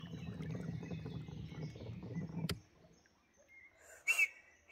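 Steady low rumble of a small boat moving into the shallows, with birds singing faintly. The rumble cuts off with a click about two and a half seconds in, and a short bird call follows near the end.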